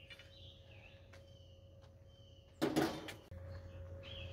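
Songbirds chirping in the background, with a short, sharp clatter about two and a half seconds in.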